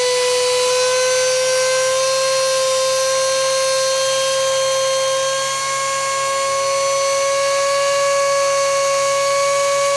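Mini 4WD electric motor running flat out on a 4.5-volt bench supply, a steady high whine whose pitch creeps slightly upward as it settles at speed.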